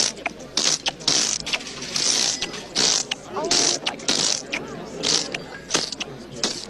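Rapid mechanical ratcheting and rasping: short hissing scrapes about two to three times a second, mixed with sharp clicks.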